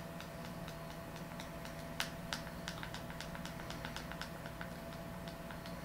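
A rapid series of light, sharp clicks, sparse at first and then about five or six a second from about two seconds in, the loudest near that point, over a steady low electrical hum.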